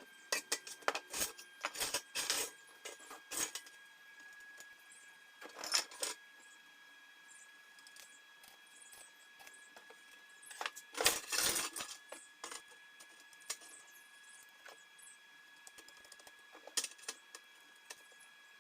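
Small metal parts clinking and knocking together as they are handled, in irregular clusters of sharp clicks with pauses between, over a faint steady high tone.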